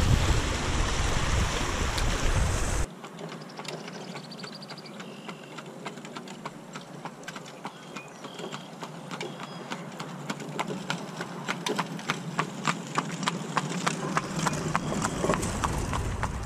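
Wind buffeting the microphone, cutting off abruptly about three seconds in; then a much quieter stretch of sharp clicks that come more and more often toward the end.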